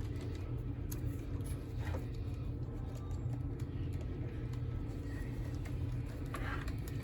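Steady low background hum with a few faint clicks and rustles from hands working at the toy's plastic clips and fur.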